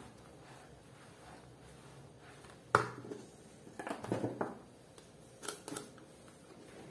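Faint handling of crumbly dough in a plastic bowl with a wooden spoon, then one sharp knock a little under three seconds in as the spoon is put down against the bowl. Lighter knocks and clicks follow as a plastic jar is picked up, its lid is twisted off and the lid is set down on the table.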